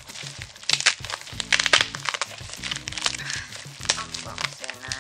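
A padded mailer envelope being pulled and torn open by hand, with sharp crinkling crackles, the loudest just under a second in and around two seconds in. Background music plays underneath.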